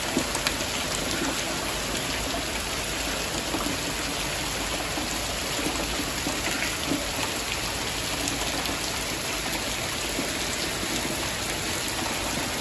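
Heavy rain pouring steadily, an even hiss with scattered sharp drop ticks.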